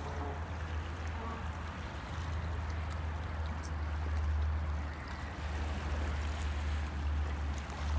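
Wind rumbling on the phone's microphone, over small sea waves lapping against the rocks at the water's edge.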